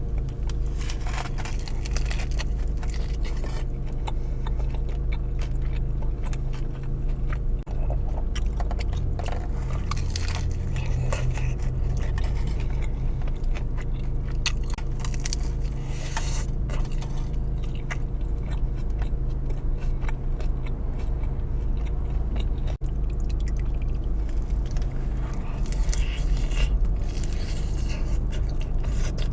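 Close-miked eating of birria tacos: biting and chewing with irregular crunchy, wet mouth sounds, over a steady low hum.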